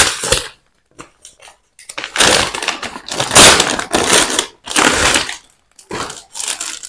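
Plastic parcel packaging crinkling and rustling as it is handled and pulled open, in several loud spells with short quiet gaps between.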